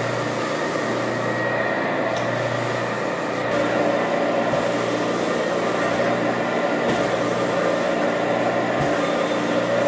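Carpet-cleaning extraction machine running steadily with a hum, its vacuum pulling solution back up through the wand and hose as the wand is drawn across the carpet. It gets slightly louder about three and a half seconds in.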